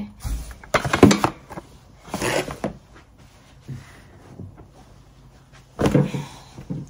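Rustling and soft knocks of blankets and clothes being handled and folded into a bag, in several short bursts: about a second in, at two and a half seconds, and near the end.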